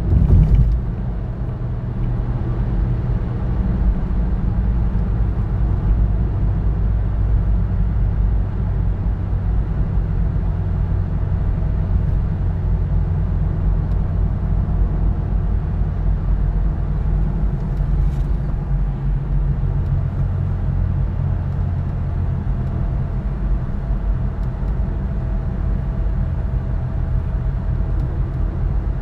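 Car cabin noise while driving on a highway: a steady low rumble of tyres and engine, recorded from inside the car as it slows from about 58 to 39 mph. A brief louder bump at the very start as the tyres cross the concrete slab joints off a bridge.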